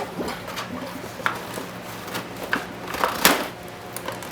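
Packaging being worked open by hand: scattered crackles and sharp snaps of the box and its inserts, the loudest a little after three seconds in.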